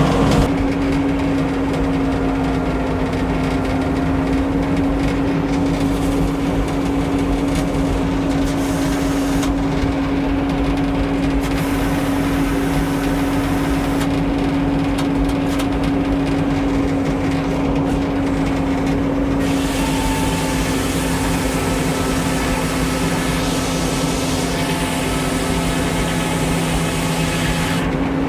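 Engine of an old Frick sawmill running steadily at a constant speed, a continuous even hum.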